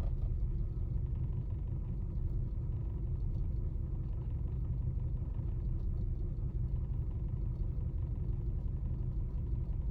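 1999 Lexus RX 300's 3.0-litre V6 idling roughly in reverse with the brake held, a steady low rumble. Cylinder 6 is misfiring, which the owner puts down to a bad ignition coil.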